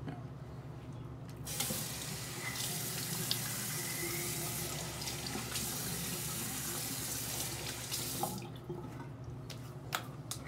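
Bathroom sink tap running: water pours steadily from about a second and a half in and is shut off about eight seconds in, followed by a few light clicks and drips.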